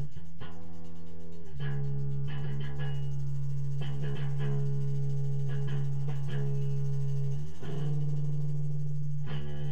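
Instrumental drone jam: a loud, steady low drone with plucked string notes sounding over it every second or so. The drone changes pitch about a second and a half in and again near the end.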